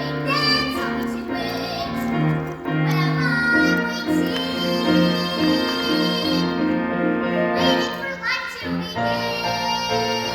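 A young singer sings a musical-theatre song over piano accompaniment, holding one long note about four seconds in.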